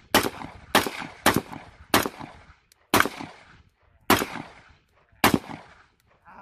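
Seven gunshots fired one at a time at an uneven pace, about half a second to a second apart, each followed by a brief echo.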